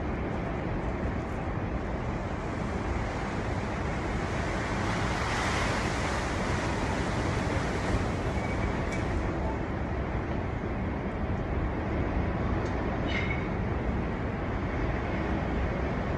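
Storm wind blowing hard, a steady low rumble with a gust swelling about five seconds in and easing off.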